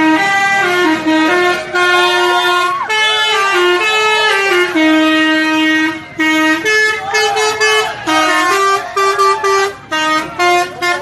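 Indonesian bus 'telolet' musical air horn (basuri) playing a tune: a run of held horn notes stepping up and down in pitch every fraction of a second, broken by short gaps in the second half.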